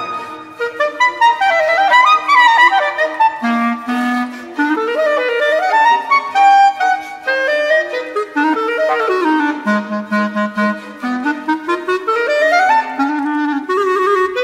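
Unaccompanied solo clarinet playing fast runs and leaps up and down its range, with a few low held notes about two-thirds of the way through.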